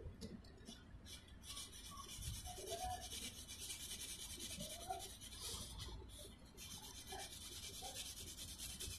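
Coloured pencil shading rapidly back and forth on paper: a fast, fine, continuous scratching that breaks off briefly about a second in and again around six seconds in.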